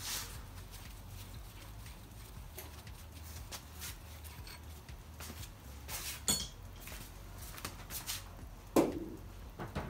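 Scattered metal clicks and knocks of hand tools and parts being handled on a small-block Ford engine block during camshaft removal. There is a ringing clink about six seconds in and a sharper, louder metallic knock near the end.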